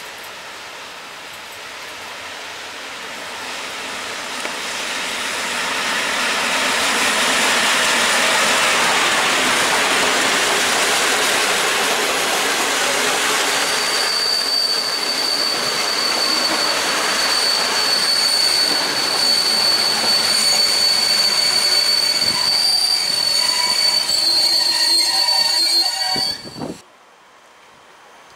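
A passenger train hauled by an EP07 electric locomotive rolls past; the rumble of its wheels on the rails grows louder over the first few seconds. About halfway a steady high-pitched wheel squeal sets in over the running noise and lasts until the sound cuts off suddenly near the end.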